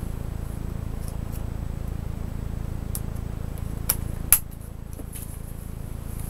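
Small plastic laptop covers being pressed into place on the case, giving a few light clicks and then two sharp clicks close together about four seconds in, over a steady low hum.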